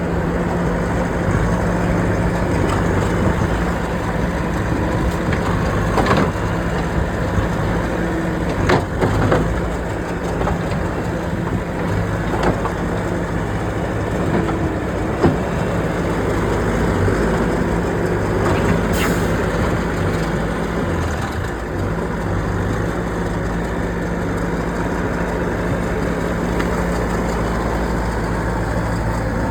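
A heavy engine running steadily under a rough, noisy bed of mechanical sound, with a few sharp knocks or clanks along the way.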